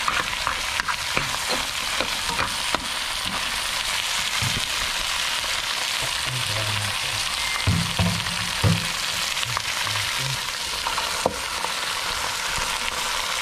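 Mud crab pieces frying in margarine and garlic in a pan, a steady sizzle, with frequent clicks and a few duller knocks of a utensil stirring against the pan.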